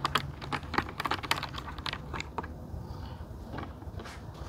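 Sharp hard-plastic clicks and light rattles from the shell, peak visor and face shield of a Bell MX-9 Adventure MIPS helmet being handled. The clicks come in a quick irregular run over the first couple of seconds, then thin out.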